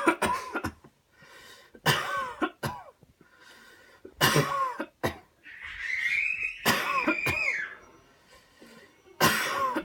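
A person coughing hard on cue after a deep breath, in about five rough bouts, with a drawn-out high-pitched strained sound in the middle.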